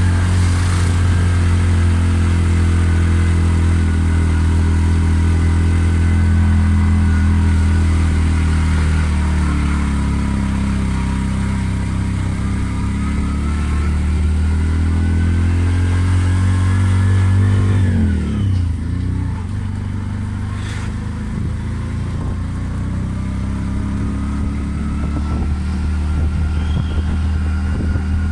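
Motorcycle engine running as the vehicle rides along a road, with steady road noise. About eighteen seconds in the engine note drops sharply as the rider eases off, then slowly climbs again as it picks up speed.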